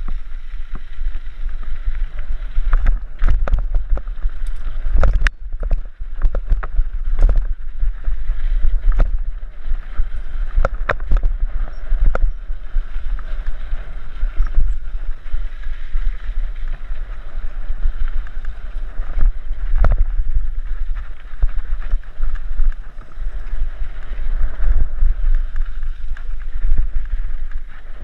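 Mountain bike ridden fast along a gravel dirt trail, heard from a helmet camera: wind buffeting the microphone under a steady crunch of tyres on loose gravel, with frequent sharp knocks and rattles as the bike hits bumps and rocks.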